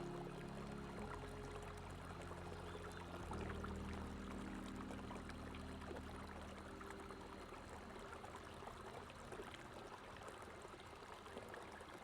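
Running water flowing and trickling steadily, with many small splashes. Soft, held low music chords sound underneath and fade away in the second half.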